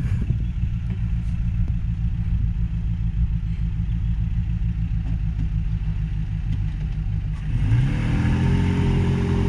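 Off-road vehicle engine running at a low, steady idle, then revving up about eight seconds in and holding the higher revs.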